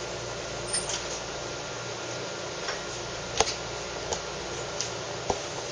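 A few light clicks and taps of cups and glassware being handled, over a steady hiss.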